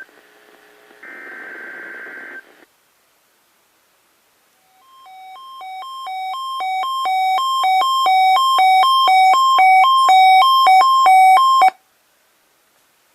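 A NOAA Weather Radio SAME digital header, a short harsh data burst about a second in, played through a Sangean CL-100 weather radio's speaker, sent for the Required Weekly Test. After a pause of about two seconds the radio's own alert sounds: a loud beep alternating between two pitches about two and a half times a second, growing steadily louder until it cuts off suddenly near the end.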